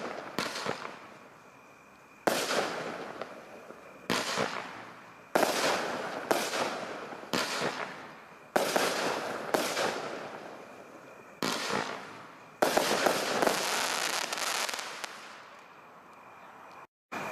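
Fireworks going off in a rapid series: about a dozen sharp bangs, a second or so apart, each followed by a noisy tail that fades away over a second or two. A brief drop-out comes near the end.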